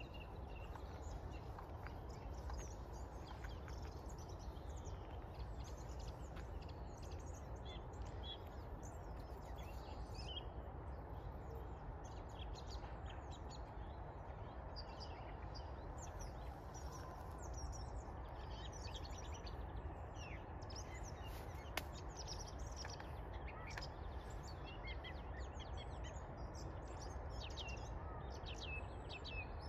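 Small birds chirping and singing in short, scattered calls over a steady low rumble.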